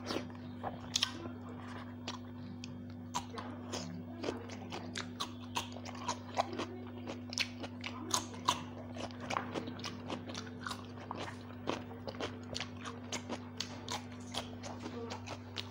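Close-miked chewing and biting, with many short crisp crunches as raw cucumber slices are bitten and chewed. A steady low hum runs underneath.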